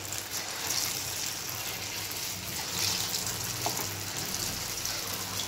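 Moong dal pakodas deep-frying in hot oil in a kadai: a steady sizzle and bubbling as fresh batter is dropped in and cooks.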